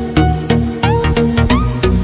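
Electronic background music with a steady beat, about three beats a second, over held synth notes, with a few notes sliding upward about a second in.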